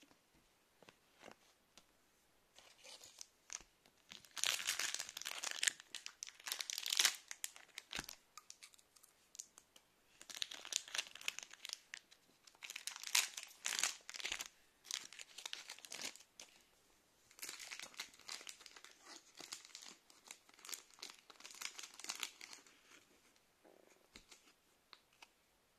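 Plastic booster pack wrappers of Pokémon trading cards crinkling and tearing open, in three bursts of dense crackling with short pauses between.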